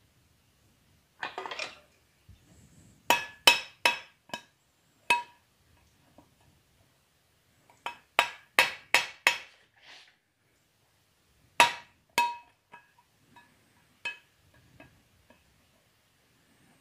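Hammer blows on steel as rivets (nails used as rivets) are set to fasten a hinge piece to a forged steel skillet pan backed by a post in a vise. Each blow rings metallically. The blows come in three quick runs of about five, the last one tailing off into lighter taps, with a brief scrape of metal being handled about a second in.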